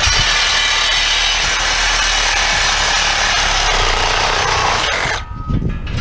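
A power tool cutting scrap steel: a loud, steady, harsh noise that cuts off suddenly about five seconds in.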